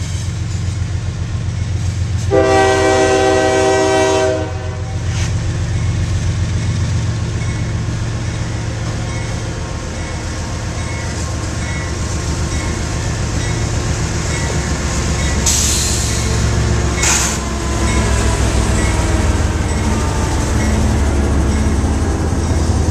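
Union Pacific diesel locomotive hauling a double-stack container train past: one long horn blast of about two seconds, starting about two seconds in, over the steady low rumble of the engine, then the train's cars rolling by.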